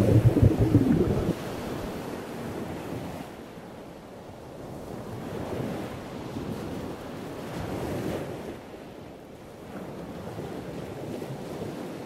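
Ocean surf: a deep, rumbling wave washes in over about the first second, then softer waves rise and fall in slow swells.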